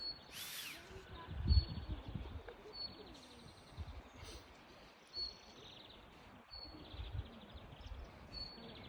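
Small birds chirping with short, high repeated chirps, over irregular low rumbling.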